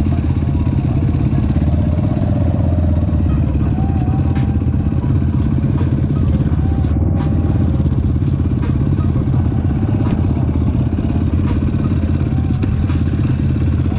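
Off-road side-by-side vehicle's engine running steadily while driving, a loud continuous low drone.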